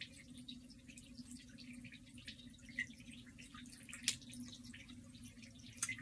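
Faint steady hum of an electric potter's wheel spinning, with soft wet dripping and small ticks of water and clay, and a few sharper clicks.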